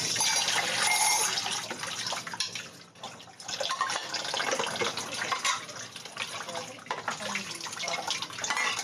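Water running from a kitchen tap into a sink as dishes are rinsed by hand under the stream, with a short break in the flow sound about three seconds in.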